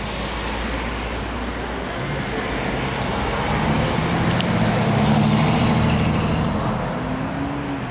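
Road traffic noise: a motor vehicle's engine rumble with passing tyre noise, swelling to a peak about five seconds in, then easing off.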